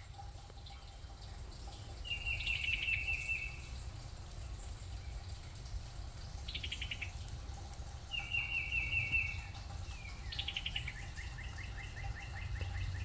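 Songbirds singing: rapid trills about a second and a half long repeat several times, with shorter, higher buzzy trills in between, over a steady low rumble.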